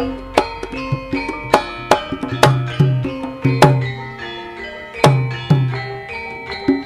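Javanese gamelan (karawitan) music playing: struck bronze metallophones ringing in a steady pattern, punctuated by deep drum strokes.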